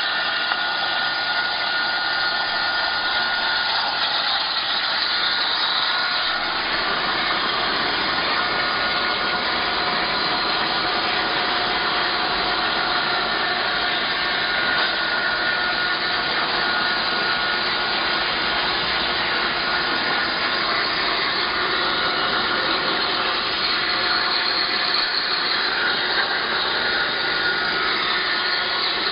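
CNC plasma torch cutting one-inch steel plate: a steady, loud hiss of the arc and its gas jet with a thin, steady high whistle running through it.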